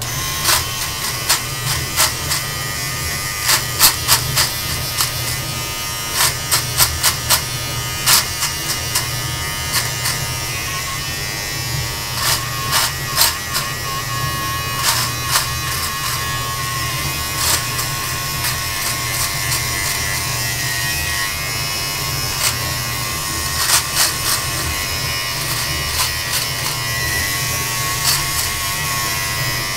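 Electric beard trimmer running steadily with a low hum, punctuated by frequent irregular crackles as its blades cut through beard and mustache hair.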